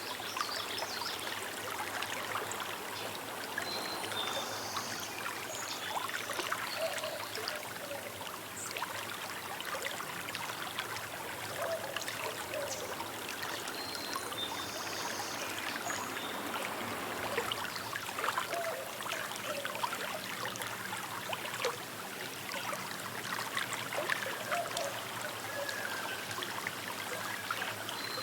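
A small river babbling and trickling steadily over stones, with a few short bird calls now and then.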